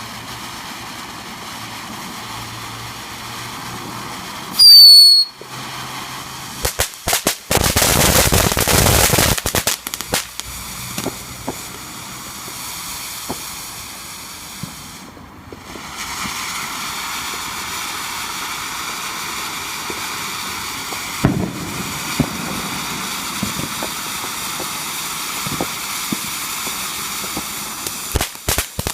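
Fireworks going off: a very loud bang with a short falling whistle about five seconds in, then a few seconds of rapid crackling. Scattered pops and bangs follow, with another burst of crackling near the end.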